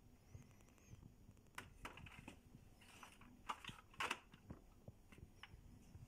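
Near silence with a few faint, short clicks and rustles of handling, the loudest two about three and a half and four seconds in.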